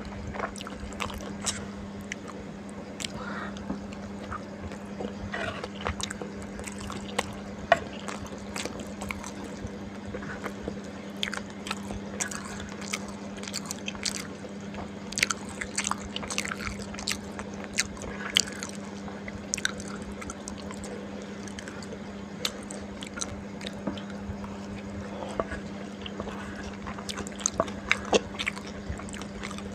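A person chewing and eating, with irregular wet mouth clicks and smacks throughout, over a steady low hum.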